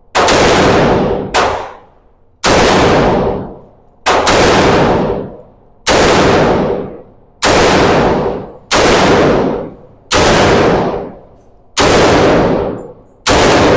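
Gunshots at a shooting range, about ten single shots fired at a steady pace of roughly one every second and a half, each shot trailing off over about a second.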